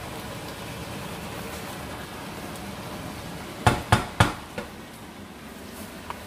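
A pan of tomato stew simmering with a steady, rain-like bubbling hiss. A little over halfway through, three sharp knocks of kitchenware in quick succession, then a lighter one.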